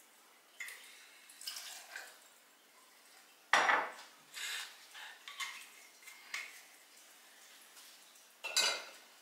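Glass bottle, shot-glass jigger and metal cocktail shaker clinking and knocking as they are handled and set down on a bar top: a series of separate knocks, the loudest about three and a half seconds in and another near the end.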